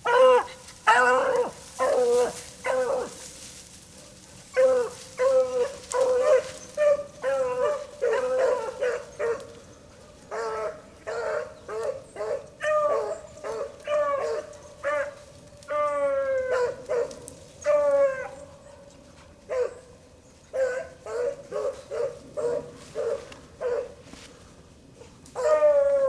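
Hounds baying while running a rabbit, the cry of dogs on the scent: many short, pitched bays in quick runs broken by brief pauses, with a few longer drawn-out calls past the middle and a last burst near the end.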